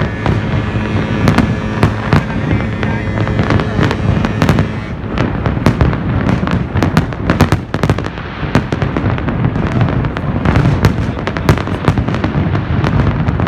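Fireworks display going off continuously: a dense run of sharp bangs and crackles, several a second, over a steady low rumble.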